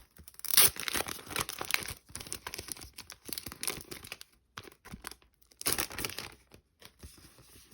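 Crinkling and tearing of packaging handled by hand as items are unwrapped: about four seconds of rustling, then a pause and a shorter second burst.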